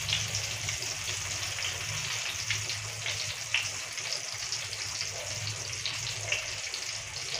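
Eggplant-and-egg omelette frying in hot oil in a pan: a steady sizzle with a few small pops now and then.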